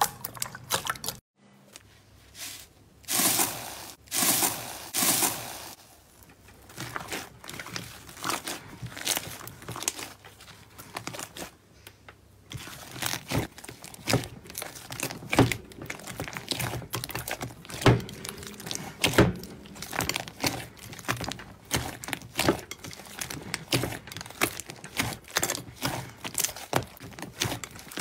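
Hands kneading and squeezing thick slime in a glass bowl: wet squishing, turning into a dense run of small crackling clicks and pops in the second half.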